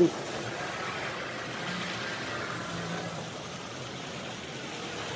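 Model trains running on the layout's track, a steady hum of their motors and wheels on the rails. A single sharp click comes at the start.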